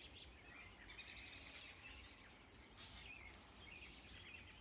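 Large flock of small birds chirping faintly in the trees, many overlapping calls, with one louder call about three seconds in.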